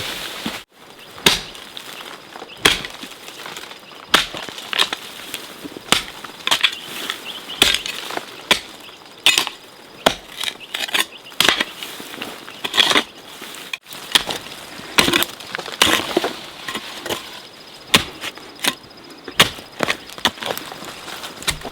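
Repeated sharp chopping strikes, irregularly spaced at about one or two a second.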